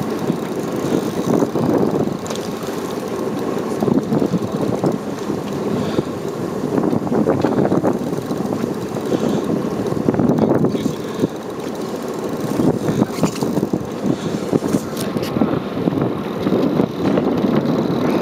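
Wind buffeting the microphone on a boat's open deck, in uneven gusts, over the boat's engine running underneath.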